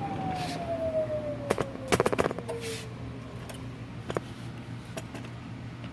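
Robofusion peristaltic pump motor winding down after being switched off: a whine falling steadily in pitch over about three seconds. A few sharp clicks about two seconds in.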